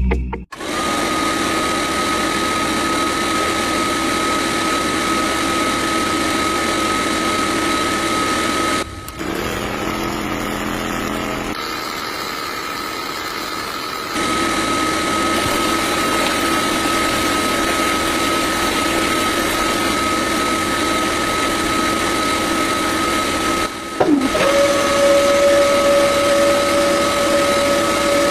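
Small electric motor of a homemade miniature borewell drilling rig running with a steady high whine, broken by a few short cuts. Near the end a second, lower-pitched motor whine joins it.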